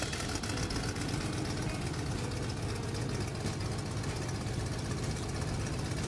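Propeller-plane engine sound effect running steadily: a rapid, even buzzing drone with a low rumble.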